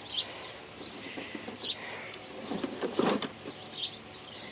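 A few short bird chirps, with a cluster of light knocks and clatter about three seconds in from materials being handled during construction work.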